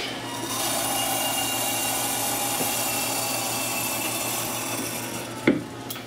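Two-post vehicle lift lowering with a steady hiss of hydraulic fluid bleeding back through the lowering valve, lasting about five seconds. A single sharp knock follows near the end as the lift settles.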